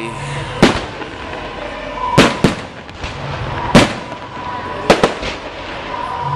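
Aerial fireworks shells bursting, about six sharp bangs a second or so apart, two of them in quick pairs.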